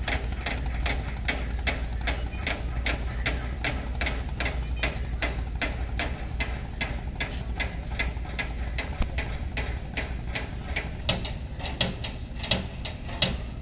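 Steady mechanical knocking, about three to four sharp knocks a second, over a constant low rumble.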